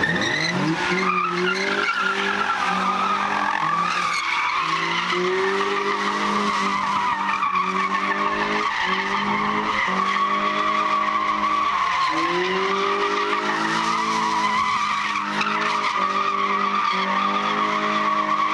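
A car doing donuts: the tyres squeal without a break while the engine is held at high revs, its pitch dipping and climbing back every second or two as the throttle is worked.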